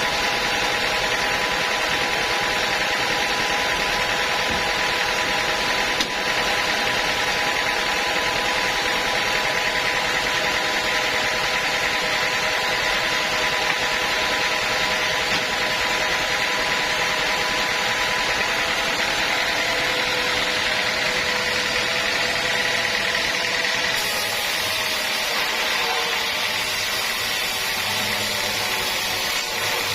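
A sawmill saw running steadily with a constant whine. Its pitch sags slightly and wavers about 24 seconds in.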